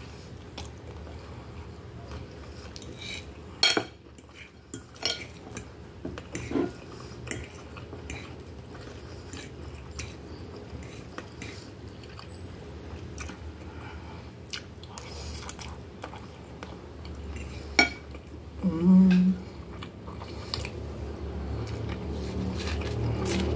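Metal fork clinking and scraping against a glass plate in scattered sharp clicks while noodles are picked up and chewed, with two short high squeaks near the middle.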